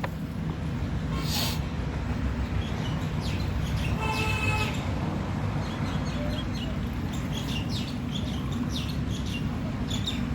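Steady low background hum, with small birds chirping over it: a short pitched call about four seconds in, then a run of quick chirps in the second half.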